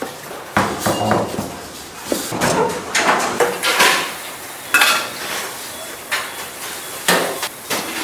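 Metal pots, pans and utensils clattering and scraping, in irregular knocks and longer scrapes.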